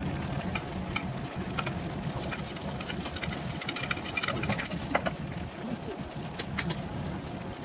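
A metal ladle and a spatula clicking and scraping against a shallow metal pot of rabokki as grated cheese is scraped in and broth is ladled over it, with a quick run of clicks in the middle.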